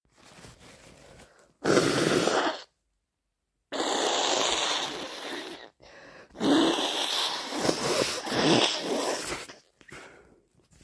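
A person with a heavily congested head cold blowing their nose hard: a short blast, then two long, wet blows of two to three seconds each.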